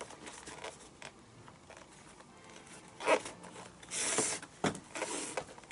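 Leather lace pulled through the lace holes in the fingers of an SSK Dimple baseball glove during relacing. Light handling of the leather comes first, then a few short pulls, the longest and loudest about four seconds in.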